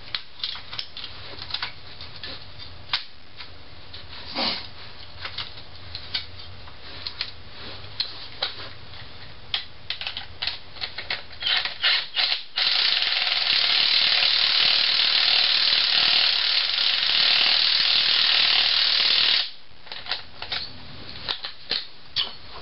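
Metal clinks and clicks of spring compressor hooks being set and snugged on a strut's coil spring. About halfway through, a cordless impact wrench runs steadily for about seven seconds, driving a spring compressor's threaded rod down to compress the spring. The clinks go on after it stops.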